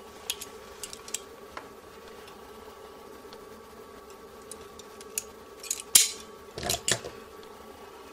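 Self-adjusting automatic wire stripper stripping the insulation off a thin wire: a few light clicks, then a cluster of sharp snaps about five to seven seconds in as the jaws clamp, pull and spring back.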